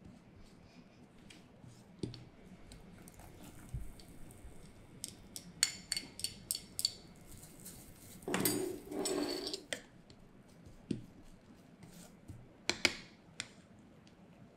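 A wooden fork tapping, clicking and scraping against a small electric pot as a thick sauce is mashed and stirred, with a louder stretch of scraping about eight seconds in.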